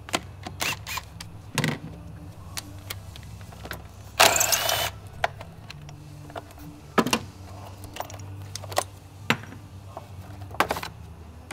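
Sharp clicks and knocks of hard plastic as a car's battery box cover is unclipped and lifted off by hand, with one loud scraping rustle about four seconds in, over a steady low hum.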